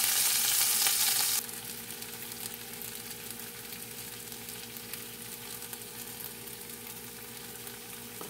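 Thin-cut potato strips frying in hot oil in a wok just after going in: a steady sizzle with light crackling as they are stirred with a wooden spatula. The sizzle drops sharply in level about a second and a half in.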